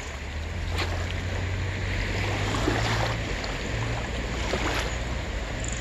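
Gentle lapping of shallow sea water at the shoreline, with a steady low wind rumble on the microphone.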